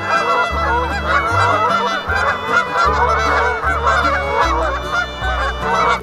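Domestic geese honking, many calls overlapping in a steady chorus.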